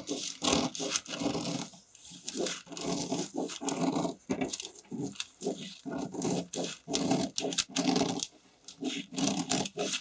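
Scissors snipping through a paper pattern laid over spandex fabric in a steady run of rough cuts, two or three a second, with a brief pause near the end.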